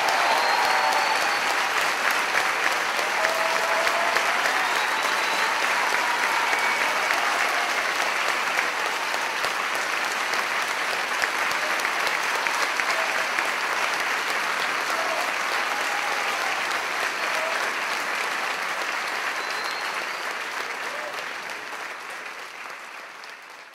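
Theatre audience applauding steadily, with a few voices calling out over the clapping; the applause fades out near the end.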